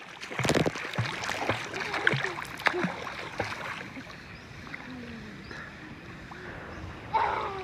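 Pool water splashing from a child kicking and swimming close by, several splashes in the first few seconds, then settling into gentle lapping. A child's voice calls out near the end.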